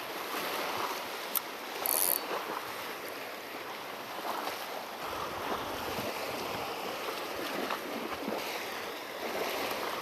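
Sea water washing and sloshing against shoreline rocks, a steady wash with no breaks. A brief high hiss about two seconds in.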